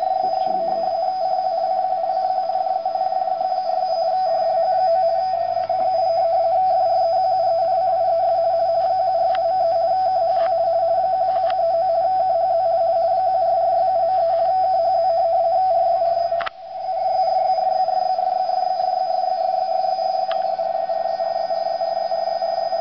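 RTTY signal from DDH47, the German weather service's 147.3 kHz longwave teleprinter station, received on a homebrew valve receiver and heard as a steady audio data tone with a faint high whine above it. A sharp click and a brief dropout come about sixteen seconds in.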